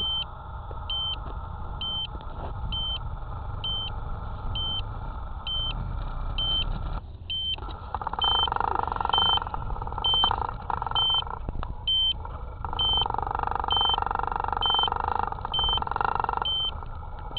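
Toy quadcopter drone beeping a short electronic alarm tone at an even pace, a little under a second apart, as it lies after a crash. From about eight seconds in, rough rubbing and handling noise as the drone and its camera are picked up and held against a jacket.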